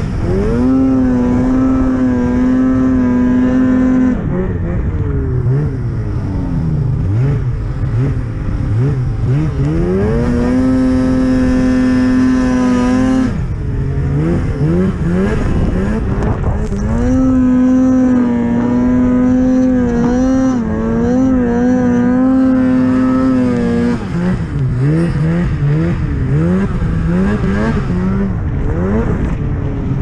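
Snowmobile engine at high revs while riding through deep powder, its pitch held steady for a few seconds at a time, then dropping and climbing back as the throttle is eased off and reopened, several times over.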